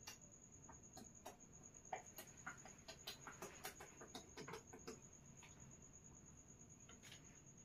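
Near silence: room tone with a faint steady high-pitched whine and a scattering of faint small clicks and ticks.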